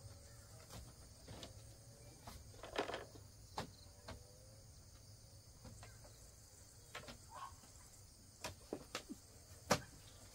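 A dozen or so sharp knocks and clicks at irregular intervals, the loudest near the end, over a steady chirring of crickets.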